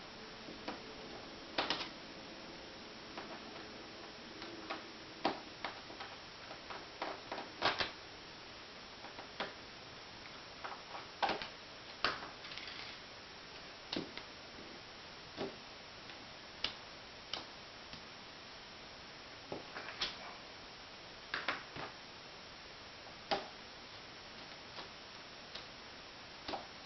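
Irregular small clicks and taps of precision screwdrivers on the screws of a Leica M6 camera's top plate, as the hot-shoe screws are loosened and backed out.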